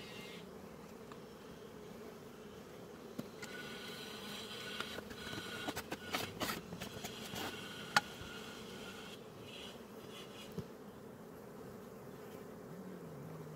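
Honeybees buzzing steadily over an open hive, with a scatter of light clicks and knocks as a metal comb cage is handled over the frames, the sharpest about eight seconds in.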